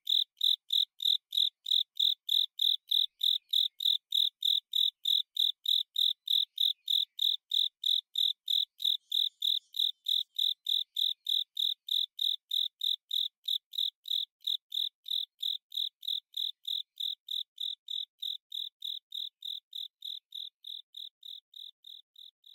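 Male Japanese burrowing cricket (Velarifictorus micado) calling: a steady series of short, high, pure chirps at about three a second, fading out near the end.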